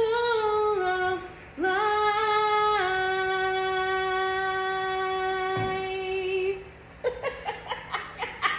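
A solo voice singing unaccompanied, ending a phrase and then holding one long note for about five seconds. A quick run of short, sharp sounds follows near the end.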